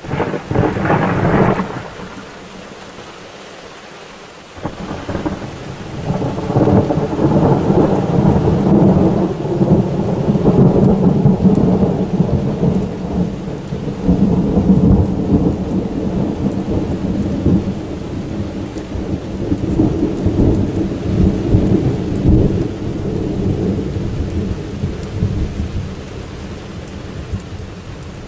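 Thunder: a sudden sharp clap right at the start, then a few seconds later a long, low rolling rumble. The rumble swells, holds strong for about fifteen seconds and slowly dies away.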